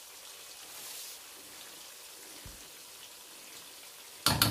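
Chopped onions, tomatoes and garlic simmering in oil in a frying pan, a steady soft sizzle and bubble. A brief loud clatter near the end.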